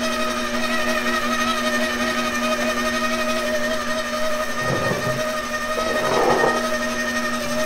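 KitchenAid Professional 6 stand mixer running at low speed, its motor a steady whine as the flat beater mixes butter, sugar and eggs into cookie dough. Two short, duller noises come about five and six seconds in.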